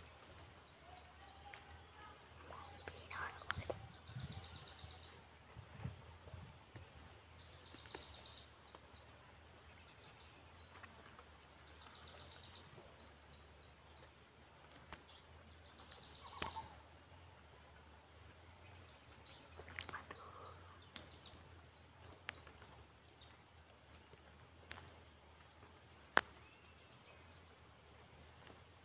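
Faint outdoor ambience with a high-pitched chirping call, a short run of quick falling notes, repeating every second or two. One sharp click comes near the end.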